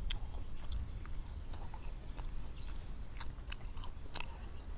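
Close-up chewing of soft garlic bread: irregular small wet clicks and smacks from the mouth over a steady low rumble.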